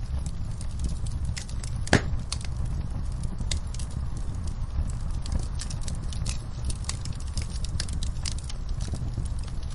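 Wood fire in a fireplace crackling, with frequent small snaps and one loud pop about two seconds in, over a steady low rumble.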